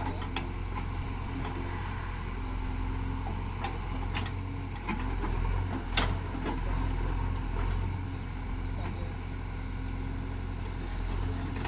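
Heavy diesel machinery engine running steadily with a low rumble, and a few sharp knocks, the loudest about six seconds in.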